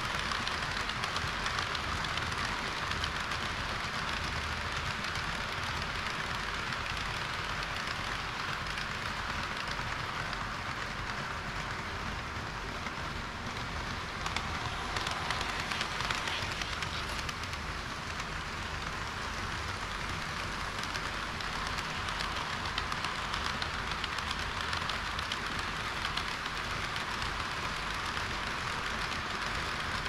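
HO-scale model trains rolling along sectional track: a KiHa 40-series railcar set and a freight of tank cars. Their small wheels and motors make a steady, fine rushing clatter over a low rumble.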